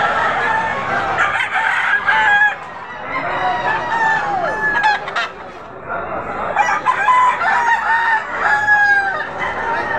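Several gamecock roosters crowing, their crows overlapping one after another at different pitches.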